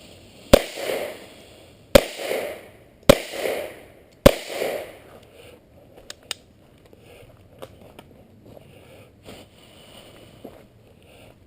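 Four shots from an AR-15 pistol in .223/5.56, fired about a second apart, each followed by a short echo.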